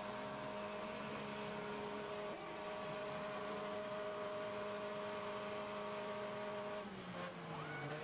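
Demolition derby car engine held at steady high revs as the car pushes against another wreck with its wheels spinning; about seven seconds in the revs fall away and waver.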